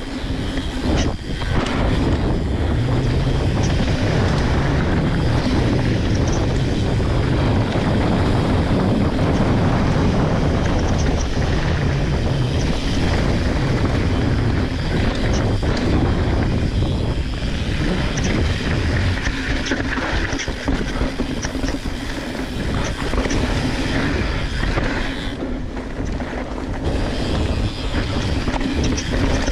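Mountain bike rolling fast down a dirt trail: steady wind rush on the bike-mounted camera microphone over the tyres on dirt, with small knocks and rattles from the bike over rocks and roots, easing briefly about three quarters of the way through.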